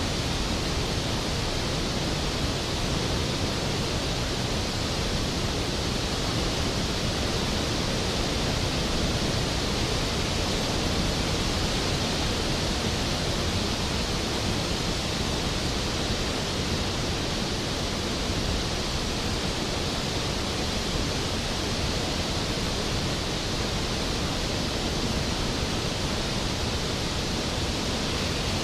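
Skógafoss waterfall, a large waterfall falling onto its plunge pool: a steady, even rush of falling water with no changes.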